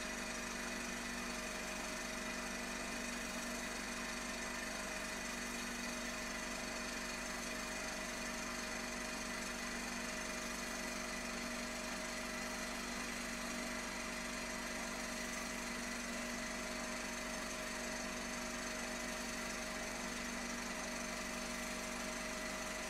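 16mm film projector running with a steady mechanical clatter and motor hum.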